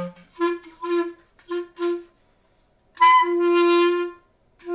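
Clarinet playing four short, separately tongued notes on one low pitch, then a longer held note on the same pitch about three seconds in, and another sustained note starting near the end.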